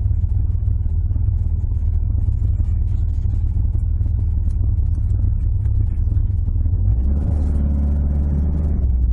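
Toyota AE86's 4A-G twin-cam four-cylinder engine running, heard from inside the cabin as a steady low rumble. About seven seconds in, the engine note rises and fills out for about two seconds.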